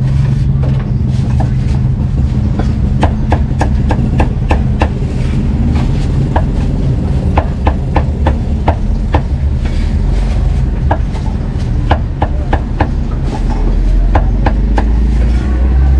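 A meat cleaver chopping cooked meat on a thick round wooden chopping block: sharp knocks in quick, irregular runs, over a steady low rumble.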